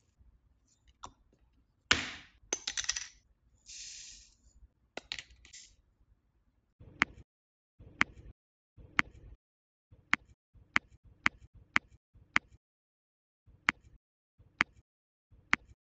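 Diamond-painting drill pen pressing round resin drills onto the adhesive canvas, a crisp click each time, about one a second through the second half. Before that, a few rattles and rustles as the drills are handled.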